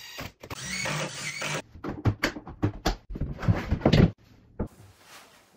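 A cordless drill-driver whirs for about a second, its pitch wavering as it drives a screw into a cabinet panel. Then comes a quick run of sharp knocks and clatters of parts being handled, the loudest a little before the end, and one last click.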